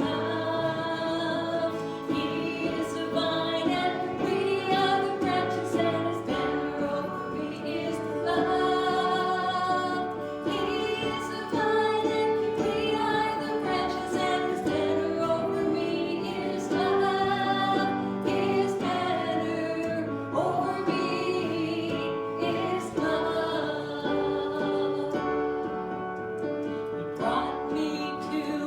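Worship song: voices singing a slow melody over steady instrumental accompaniment.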